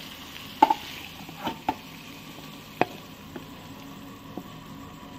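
A wooden spatula scraping and knocking against a metal kadai while fried shallots, tomato and mint are moved into a steel container. There are about half a dozen sharp knocks, a couple with a brief metallic ring, over a low steady sizzle.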